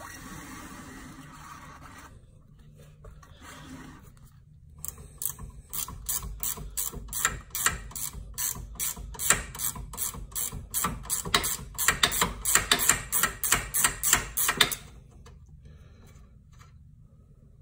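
Socket ratchet clicking fast, about four clicks a second, as the nut on a golf cart's front shock absorber mount is wound off. The clicking starts about five seconds in and stops suddenly about ten seconds later, after a brief soft scuffing at the start.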